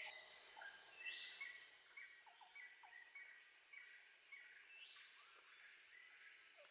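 Near silence, with faint repeated chirping that fades out about two seconds in.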